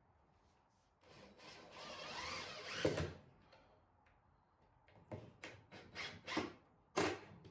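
Hands working a metal welding jig on a workbench: a scraping slide of about two seconds ending in a clunk, then a handful of sharp knocks and clicks as the part is set and tightened down.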